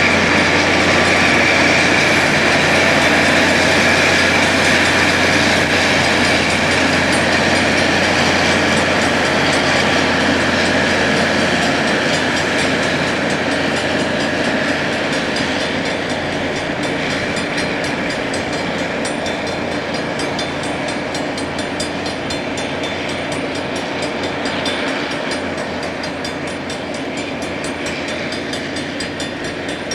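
Rail grinder working along the track: a loud, steady grinding noise with a high tone in it, gradually fading.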